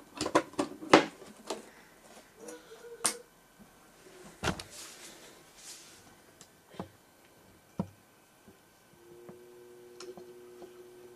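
Sharp clicks and knocks as a 3.5-inch hard drive is handled and slotted into a drive dock, with a few separate knocks after. From about nine seconds in, a faint steady hum with a few fixed tones: the freezer-chilled drive spinning up once powered.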